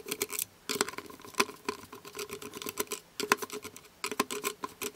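A screwdriver turning a screw in the plastic base of a food dehydrator, making runs of quick clicks with a faint creak.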